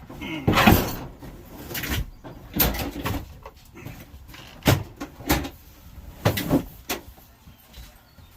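Irregular knocks, bumps and scrapes as a toolbox is lifted and shifted into position, the loudest about half a second in.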